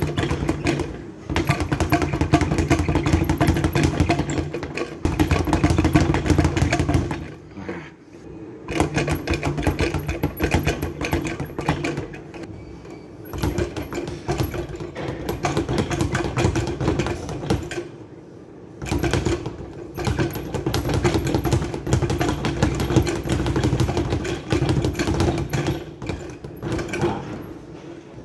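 Speed bag being punched in a fast, steady drumming rhythm, the leather bag rattling against its wooden rebound platform. Two brief breaks, about a third and two-thirds of the way through, then the rhythm picks up again.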